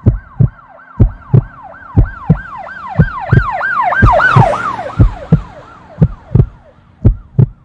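Emergency-vehicle siren cycling rapidly up and down, swelling to its loudest about four seconds in and then fading away, over a steady beat of paired low thumps about once a second.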